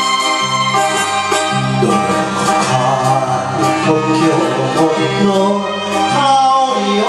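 A man singing an enka song into a handheld microphone over recorded instrumental backing music; his voice comes in about two seconds in.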